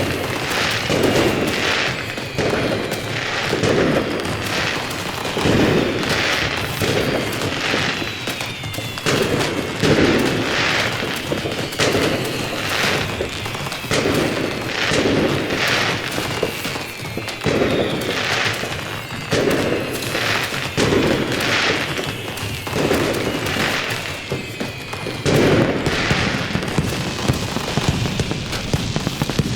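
A continuous fireworks barrage: a dense run of bangs and booms about once a second, with whistles gliding down in pitch among them.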